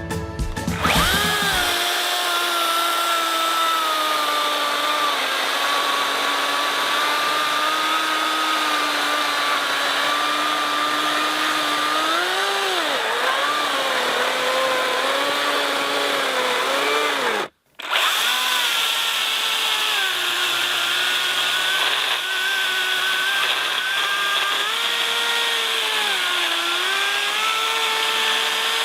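Cordless electric chainsaw running and cutting wood: a steady motor whine that dips in pitch now and then as the chain bogs under load. It breaks off for an instant about two-thirds of the way through.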